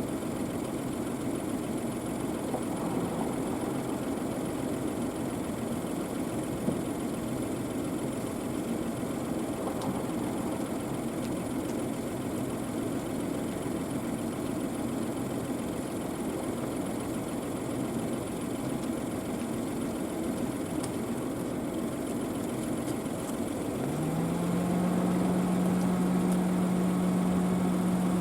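An engine idling steadily, a low even rumble. Near the end a louder steady hum starts, rising briefly in pitch and then holding level.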